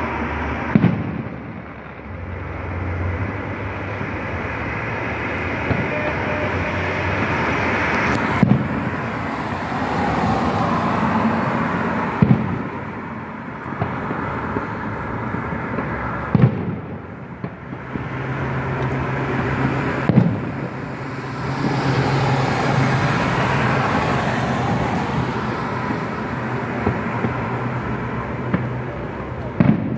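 Fireworks shells bursting overhead: about half a dozen sharp bangs, spaced several seconds apart, over the steady sound of road traffic passing close by.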